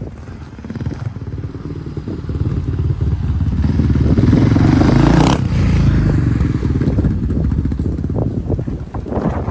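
Honda XR650R dirt bike's single-cylinder four-stroke engine running as the bike is ridden, opening up to its loudest about four to five seconds in, then backing off.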